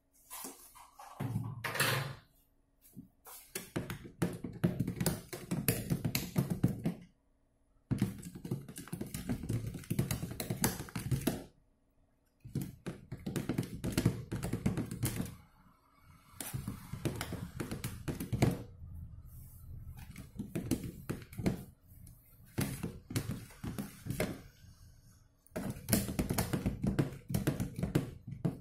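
Long plastic spoon stirring a thick soap-and-detergent mixture in a plastic tub, knocking rapidly against the tub's sides in bursts broken by short pauses.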